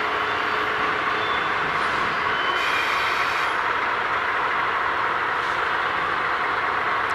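DD51 diesel locomotive running steadily as it shunts at walking pace, with a faint, brief high squeal about three seconds in.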